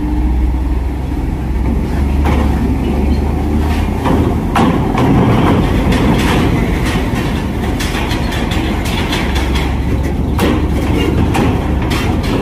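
Heavy truck engine pulling a loaded trailer up a ferry's steel loading ramp, with clanks and rattles as the wheels and trailer cross the ramp. The engine's low drone eases off about four seconds in and comes back strongly near the end.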